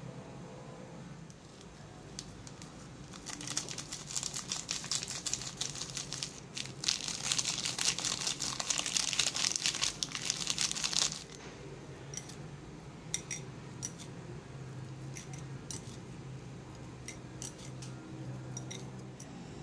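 Plastic-foil seasoning sachet crinkling as it is torn open and the Buldak Tomato Pasta powder is shaken out over the noodles, loudest for a few seconds in the middle and then stopping abruptly. Afterwards, scattered light clicks as the seasoned noodles are tossed in the bowl.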